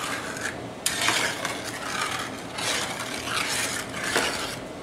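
A metal spatula repeatedly scraping and stirring scrambled eggs across the bottom of a large hand-made frying pan, about one stroke a second. The scraping keeps the eggs from drying and sticking on the hot pan bottom.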